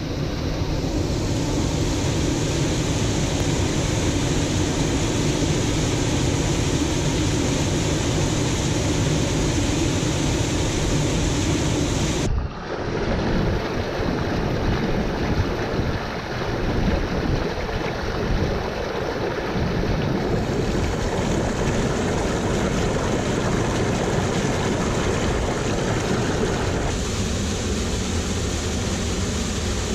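Steady rush of water from a waterfall and a small cascade, with no voices. The sound changes abruptly about twelve seconds in, and again later, as the shot cuts to another stretch of falling water.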